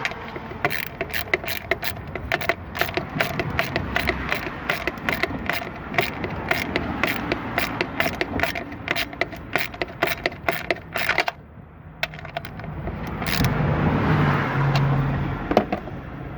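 Ratchet wrench clicking in quick runs, about three or four clicks a second, stopping about eleven seconds in. A vehicle then passes, swelling and fading.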